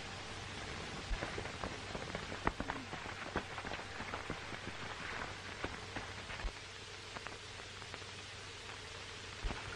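Steady hiss with scattered crackles and clicks over a low hum, the surface noise of a worn 1930s optical film soundtrack, with no speech or music.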